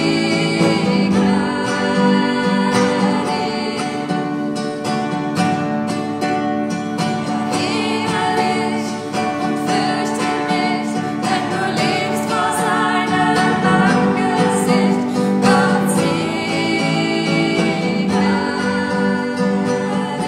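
A woman singing a sacred song to classical guitar accompaniment.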